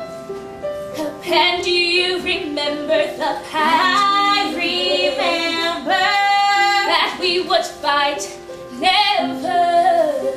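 A junior-high student singing a solo musical-theatre song over instrumental accompaniment. The voice comes in about a second in and holds long notes with vibrato midway.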